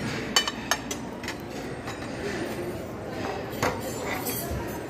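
A few sharp clinks of plates and serving tongs, the loudest near the start and again about three and a half seconds in, over a steady murmur of voices in a busy dining room.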